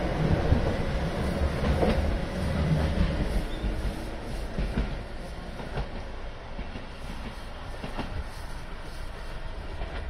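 Keihan 600-series two-car train pulling away and running off along the track, its wheels rumbling and clacking over the rails. It is loudest in the first few seconds, then fades as it recedes, leaving a few separate clicks of wheels over rail joints.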